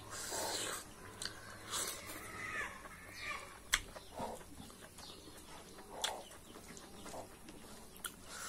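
Close-up eating sounds of a meal eaten by hand: fingers squishing rice into beef curry gravy, with wet smacks and a few sharp clicks.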